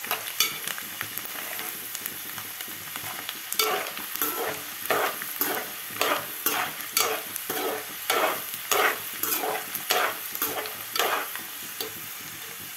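Peanuts frying in hot oil in a metal pan, sizzling steadily, with a slotted steel spatula stirring and scraping them in strokes about twice a second from a few seconds in. The peanuts are at the crackling stage that is the cue to take them off the heat.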